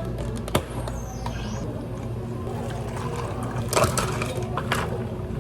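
Drink-preparation clatter behind a counter: a few sharp clicks and knocks, most of them in the second half, over a steady low machine hum.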